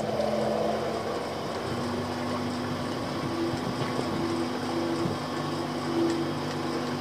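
ePropulsion Navy 3.0 electric outboard motor running under way: a steady low whine with a higher tone that comes and goes, over a steady hiss.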